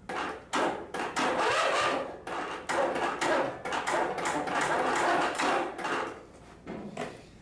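Briggs & Stratton lawn tractor engine failing to crank on the key: irregular knocking and rattling as the electric starter tries but cannot pull the engine through compression. The cause is intake valves set far too loose (about 12 to 13 thousandths instead of 4), so the camshaft compression release doesn't relieve compression.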